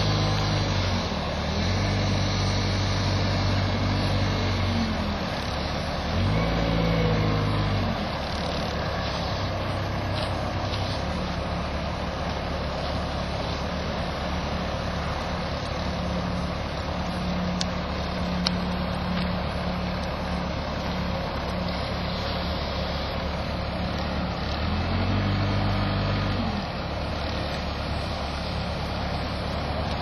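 Compact wheel loader's engine running, revving up and dropping back several times with steady running between, as the loader lifts and moves a heavy potted tree.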